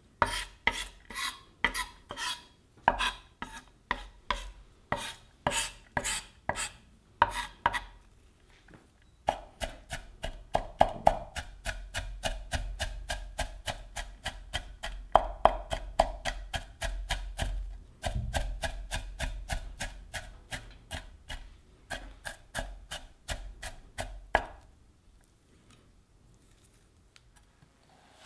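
Kitchen knife finely mincing a pile of onion on a ginkgo-wood cutting board, each stroke a crisp knock of the blade on the board. Even strokes about twice a second at first, then, after a short pause, a quicker run of about four or five a second, stopping a few seconds before the end.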